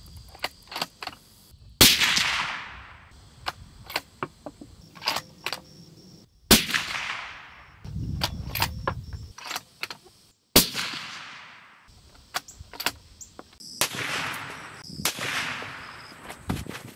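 Suppressed 7mm-08 Ruger American Gen 2 bolt-action rifle fired several times, each shot a sharp crack followed by a fading echo. Small clicks of the bolt being worked come between the shots.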